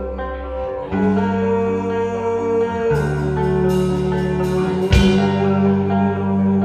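Live rock band playing: electric guitars and bass hold sustained chords that change every two seconds or so, with cymbal crashes from the drum kit a few seconds in.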